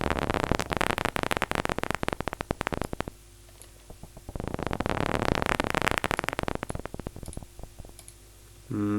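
Synthesized imitation of paper crumpling from the Vital software synthesizer: two crackling passes of dense noisy clicks, each about three seconds long, the clicks thinning out toward the end of each pass.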